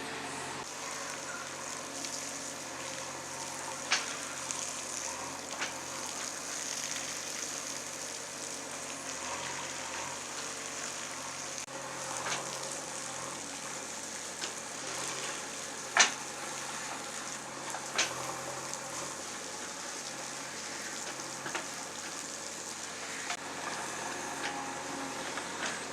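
JCB 3DX backhoe loader at work: a faint, steady engine hum under a crackling hiss, with a few sharp knocks, the loudest about two-thirds of the way through.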